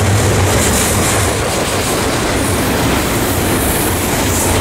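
Double-stack container freight train's well cars rolling past on the adjacent track: a steady rumble and rattle of steel wheels on the rails.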